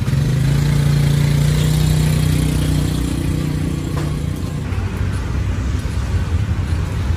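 A motor vehicle's engine running close by over street traffic noise, a steady hum that starts suddenly and fades about four and a half seconds in.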